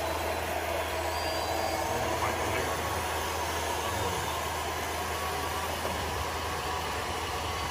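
Radio-controlled tipper truck running with a steady engine-like hum as it drives off with its tipper bed lowering.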